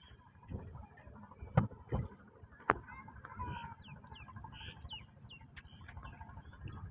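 Three sharp knocks and splashes, about one and a half to three seconds in, as bamboo net poles are worked in river water. Behind them, a low rumble and a run of short falling bird calls.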